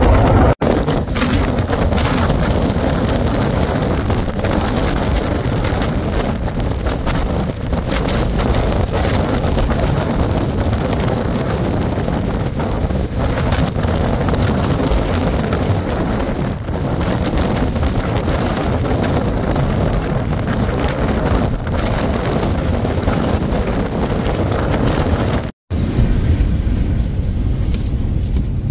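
Strong storm wind and rain, a loud steady rushing buffeting the microphone, broken by two brief silences, one about half a second in and one near the end.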